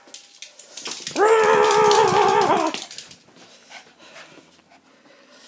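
Small dog giving one long howl, starting about a second in and lasting about a second and a half, its pitch wavering near the end, with light clicks and rustling around it.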